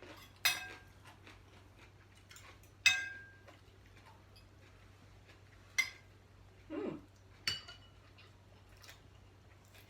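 Cutlery clinking against plates during a meal: four separate sharp clinks, the loudest about three seconds in with a short ring.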